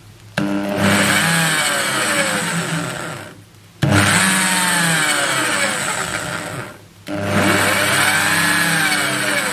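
Electric drill run in three bursts of about three seconds each, its motor whine rising and falling in pitch as a twist bit drills into the end of a copper tube.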